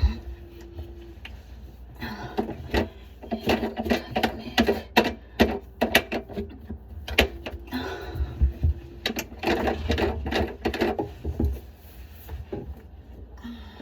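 Plastic sink drain pipes and fittings being handled and fitted together by hand: irregular clicks, knocks and scraping, with a short steady low tone twice.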